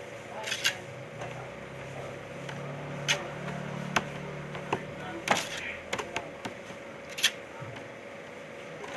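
Hands working monay bread dough on a metal worktable: irregular knocks, slaps and sharper clicks as the dough pieces are pressed, rolled and set down. A steady hum runs underneath.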